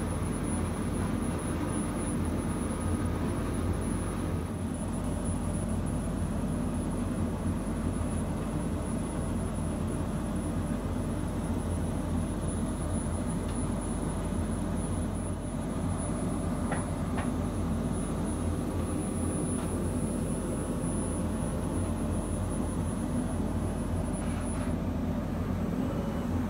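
Laser cutting machine running: a steady whirring rush of its fans and extraction, with a faint high whine over it that stops near the end.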